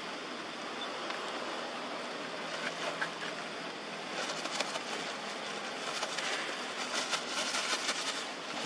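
Steady outdoor background noise, with light scratchy clicks and rustles joining in from about four seconds in.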